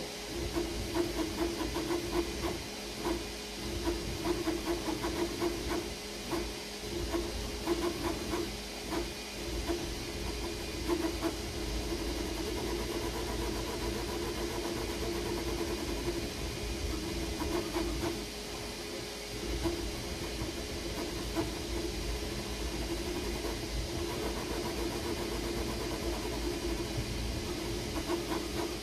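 Creality Ender 3 V3 KE 3D printer printing: its stepper motors whine in tones that shift and break off every second or so as the moves change, over a steady fan hiss.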